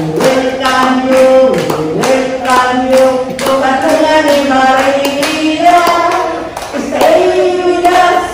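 An elderly woman singing long held notes into a handheld microphone, with listeners clapping along in a steady rhythm.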